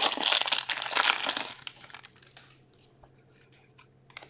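A hockey card pack's foil wrapper being torn open and crinkled, loud for about the first second and a half, then scattered soft clicks of the cards being handled and sorted, with one sharper click near the end.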